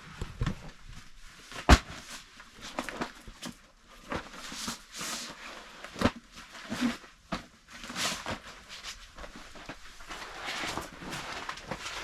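Scattered knocks and clicks with bursts of rustling, with one sharp knock a little under two seconds in.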